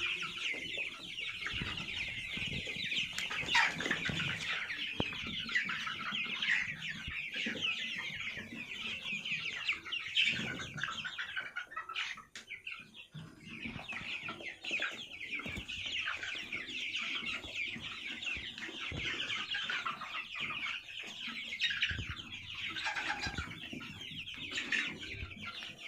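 A flock of month-old Sonali chicks peeping and chirping together in a constant, dense chorus, thinning out briefly about twelve seconds in.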